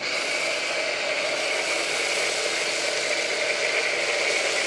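Hotstarr high-pressure washer switched on and spraying through a foam cannon: a steady motor whir with the hiss of the spray, starting abruptly.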